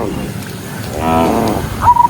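A cow mooing once, briefly, about a second in, followed near the end by a run of short, high, repeated whistle-like notes.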